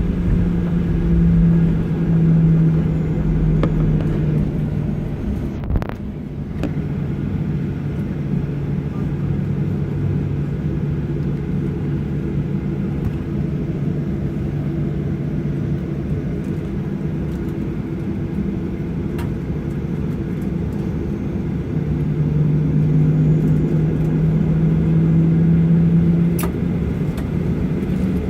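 Boeing 737-800's CFM56 turbofan engines heard from inside the passenger cabin: a steady low drone with a humming tone that dips in pitch and swells louder again near the end. A single click about six seconds in and another near the end.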